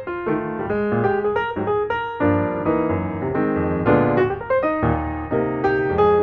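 Piano music: a melody over chords, a steady flow of struck notes that ring and fade.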